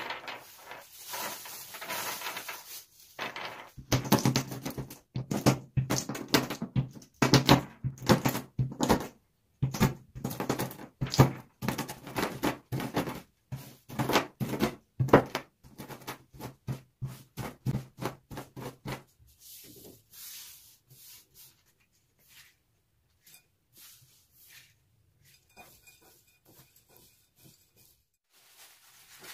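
Wooden rolling pin knocking and crushing hazelnut kernels on a wooden table: a run of sharp knocks and cracks, after a few seconds of plastic-bag rustling as the nuts are tipped out. The knocks stop after about nineteen seconds, leaving only faint scattered clicks.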